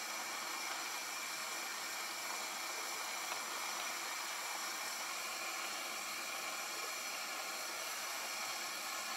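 Steady hiss of soft tofu stew heating in an earthenware pot over a gas burner, with no distinct clinks or pops.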